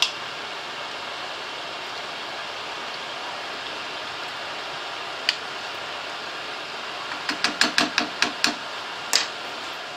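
Wooden spoon knocking and scraping against a non-stick frying pan as a tomato sauce is stirred, with single knocks and a quick run of about nine knocks near the end. A steady hiss runs underneath.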